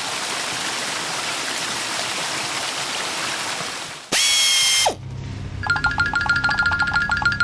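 Cartoon water-spray sound effect, a steady hiss for about four seconds while the truck is jetted clean. It is followed by a brief bright tonal effect that drops sharply in pitch, then a rapid mechanical ticking with a steady tone near the end.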